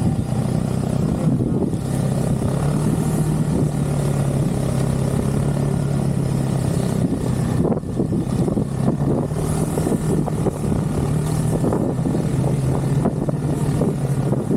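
Snowmobile engine running at a steady pitch while riding along a trail, with a brief dip a little past halfway.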